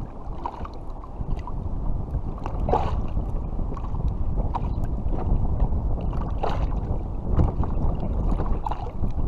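Wind noise on the microphone over water lapping against a kayak's hull, louder from about two seconds in, with a couple of brief splashes.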